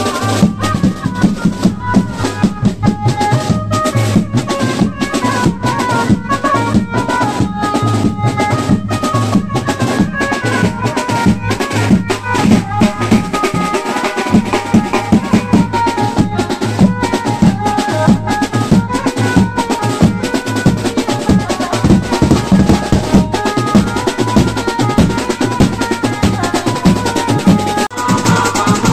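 Banjo party band playing live: large marching bass drums and other drums beaten in a fast, steady rhythm, with a melody line carried over the drumming.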